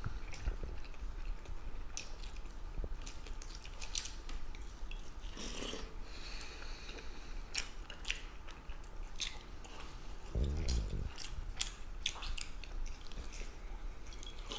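Two people eating fast: chewing and biting on fried meat cutlets, with scattered short clicks of a metal spoon against a ceramic soup bowl. A brief low voice sound comes about ten seconds in.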